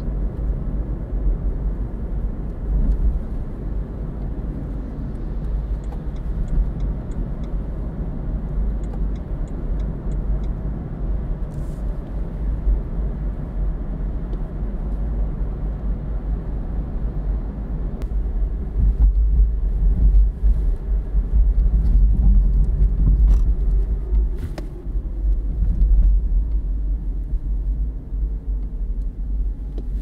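Inside the cabin of a BMW i3 electric car on the move: steady low tyre and road rumble. Near the end a faint whine from the electric drive falls in pitch as the car slows.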